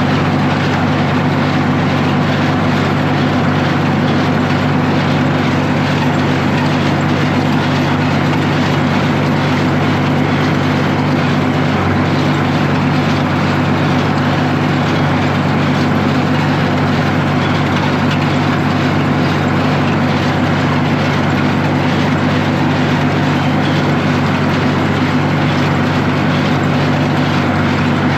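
Tractor engine running at a steady speed, driving a hay baler while baling. It is an even, unchanging engine note with no pauses.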